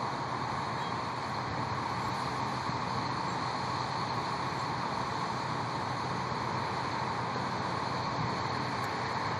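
A line of school buses idling, their engines giving a steady, even noise with no change.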